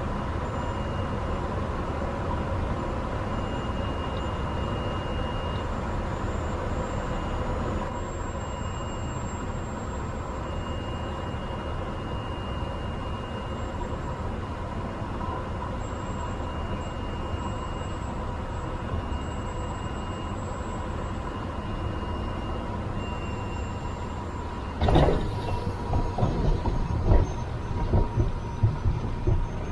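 Steady drone of a Pilatus bush plane's engine and propeller on final approach, with a steady whine through it. About 25 seconds in, a sudden loud thump as the wheels touch down, then a string of bumps and knocks as the plane rolls out on the rough airstrip.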